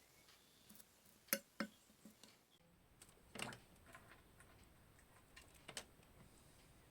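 Quiet, with a few small, sharp clicks and taps of tools and a pottery bowl being handled: two close together about a second in, a slightly longer one midway, and a quick double click near the end.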